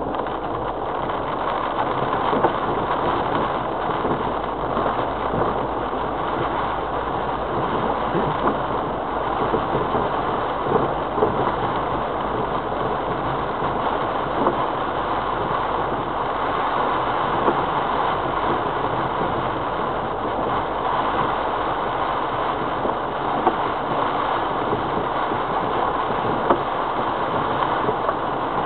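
Land Rover Freelander TD4's 2.0-litre four-cylinder turbodiesel running steadily at low speed, heard from inside the cabin together with tyre noise on a rough track. Brief knocks and rattles come through now and then as the vehicle goes over bumps.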